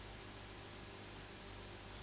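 Steady hiss with a low mains-style hum underneath: the empty audio track of a VHS tape recording of a silent menu screen, with no programme sound.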